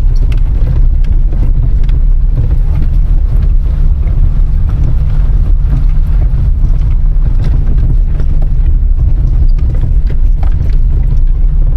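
Small car heard from inside the cabin while driving on a rough mountain road: a loud, steady low rumble of engine and road noise, with light knocks and rattles from the bumps.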